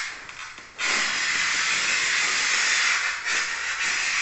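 A hand scoring cutter drawn along a large ceramic tile's glazed face against a wooden straightedge, giving a long, scratchy hiss that starts about a second in, dips briefly near the end, then carries on. This is the score line for snapping the tile.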